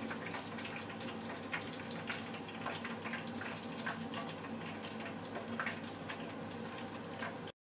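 Oil sizzling steadily with a dense crackle of small pops, the sound of vegetables deep-frying, over a faint steady hum. It stops abruptly near the end.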